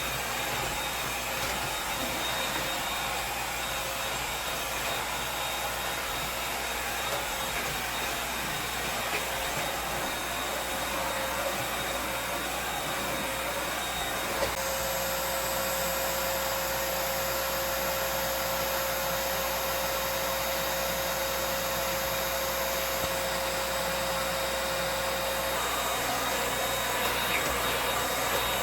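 Bagged vacuum cleaner running steadily, vacuuming a living-room floor. Its motor whine turns stronger and higher about halfway through, then settles back near the end.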